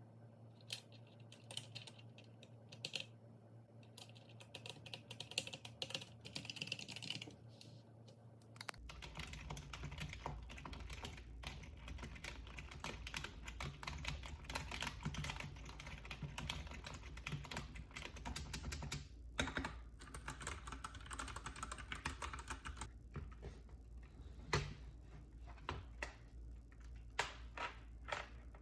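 Keychron K6 mechanical keyboard being typed on: a few scattered keystrokes at first, then fast continuous typing from about nine seconds in, thinning to single key presses near the end.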